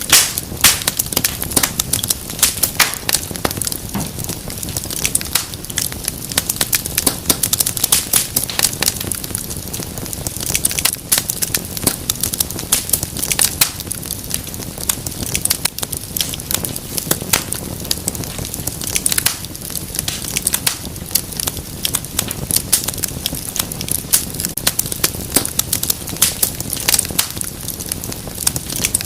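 Wood fire crackling and popping in a fireplace: irregular sharp snaps over a steady low hiss of flames.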